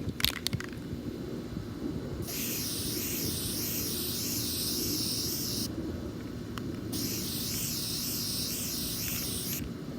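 Aerosol spray paint can spraying in two long bursts of about three seconds each, with a short gap between; the hiss wavers as the can sweeps across. A few sharp clicks come just before, over a low steady rumble.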